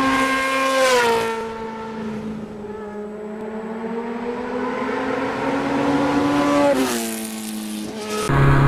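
Motorcycle engine running on the road: its note glides down about a second in, climbs slowly for several seconds, and drops sharply about seven seconds in. Just before the end it cuts to a different, lower and steadier engine sound.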